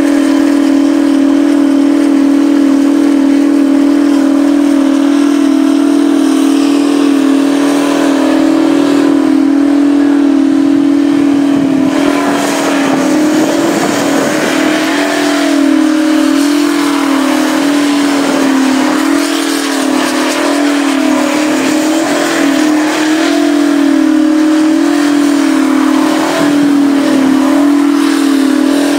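Twin-turbo V16 engine of a Mack truck held at high revs through a tyre-smoking burnout: a loud, steady engine tone whose pitch wavers slightly as the rear tyres spin. About twelve seconds in, the sound turns rougher and more hissy.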